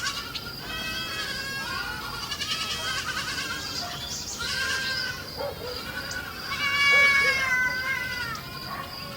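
A flock of sheep bleating, many quavering calls overlapping one after another.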